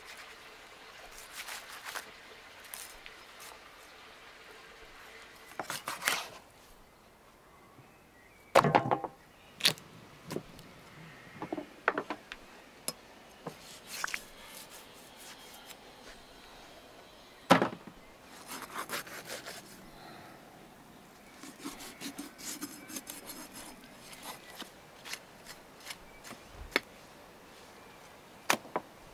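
Chef's knife cutting through a raw lamb carcass: soft scraping and slicing with scattered small ticks, and two sharp knocks, one about a third of the way in and one just past halfway.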